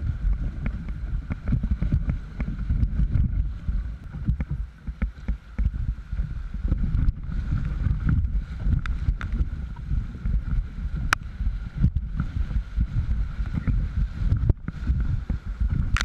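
Canoe running a whitewater rapid: rushing, splashing river water against the boat and a low, gusty rumble of wind on the microphone, with the paddle working the water.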